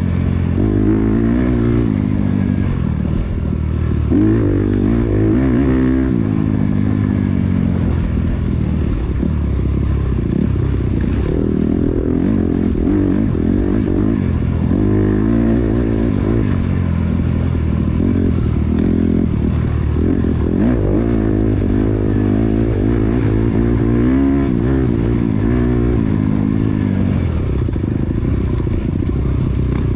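Dirt bike engine revving up and down continuously as the rider works the throttle over a rough trail, the pitch rising and falling every second or two.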